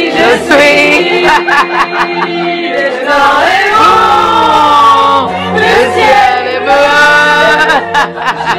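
A song with several voices singing, with long held notes that bend up and down.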